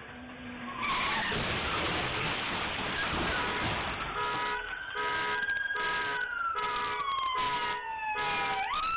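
Loud rushing noise of a car speeding past in a police chase. Then a police siren wails, falling slowly in pitch and jumping back up near the end, over short horn beeps repeating about every half second.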